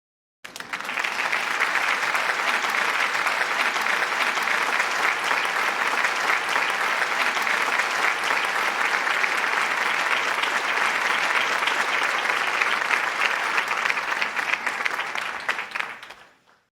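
Crowd applauding: dense, steady clapping that starts abruptly about half a second in and fades out near the end.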